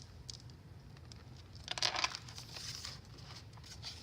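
Paper rustling and crinkling as the pages and flaps of a handmade junk journal are handled, with a louder rustle about two seconds in.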